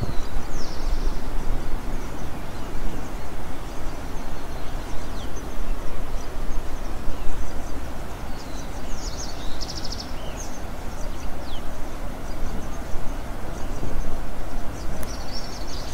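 Steady rushing outdoor background noise with small birds chirping and trilling now and then, most clearly about a second in, around nine seconds and near the end.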